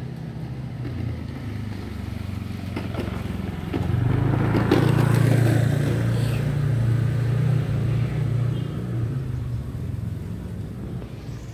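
A motor vehicle's engine running, swelling loud about four seconds in and slowly fading away towards the end, as a passing vehicle does.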